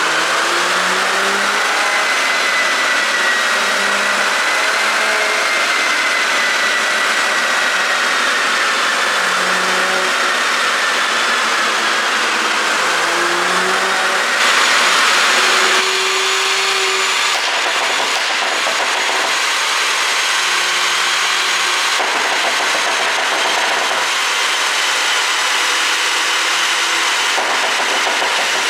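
Porsche Cayenne Coupé 3.0T turbocharged V6 running steadily at idle on a tuned ECU, with a brief louder stretch about fourteen seconds in.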